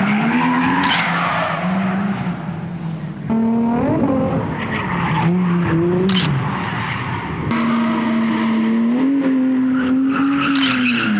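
Drift car engines revving up and down as the cars slide through a corner, their tyres squealing and skidding. The revs are held high for a couple of seconds near the end.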